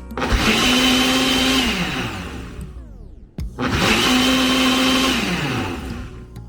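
Countertop blender run in two pulses of about two seconds each: the motor spins up, holds a steady whine, then winds down, with a short pause before the second pulse.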